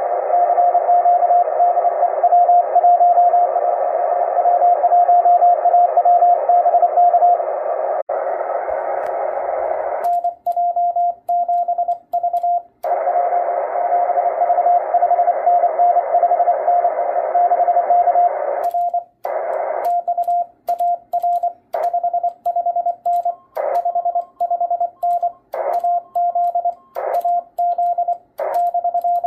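Morse code (CW) heard through an amateur radio transceiver on the 20-metre band: a keyed beeping tone of dots and dashes over a band of shortwave static hiss, a Morse code contact being worked. From about ten seconds in, the hiss keeps dropping out, with clicks, between stretches of tone, and a second, slightly higher tone comes in briefly near the end.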